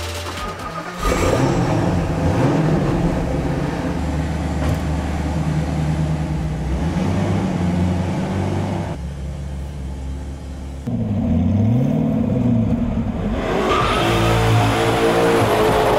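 A supercar's twin-turbo V8, the SSC Ultimate Aero's, catching about a second in after a push-button start and then revving up and down. Near the end it is heard under hard acceleration on the road.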